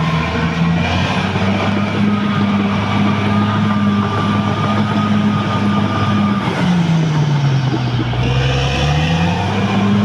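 Caterpillar D6R XL bulldozer's diesel engine running hard, with a thin whine above it. About two-thirds of the way through, the engine note sags for roughly two seconds, then climbs back up.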